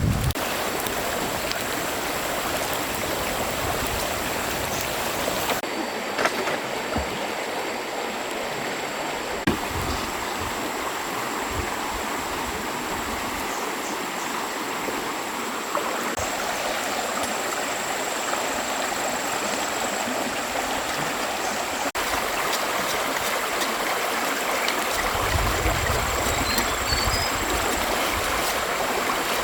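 Stream water running with a steady rush, broken by a few sharp knocks.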